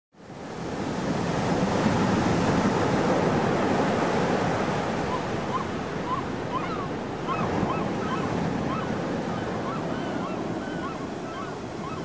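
Ocean surf washing steadily, fading in at the start. From about five seconds in, a flock of gulls calls over it in many short, rising notes.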